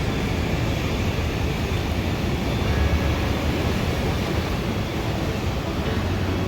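Steady rumbling, hissing noise of wind and sea surf at the pier, with no distinct events.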